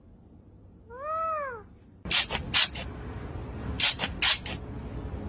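A single meow that rises and falls in pitch, followed by a series of short, sharp hisses.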